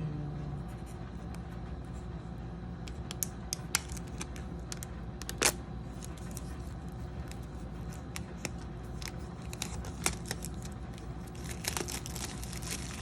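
AirPods Pro packaging being opened by hand: paper and plastic tearing and rustling, with scattered sharp clicks and taps. The loudest click comes about five and a half seconds in, and all of it sits over a steady low hum.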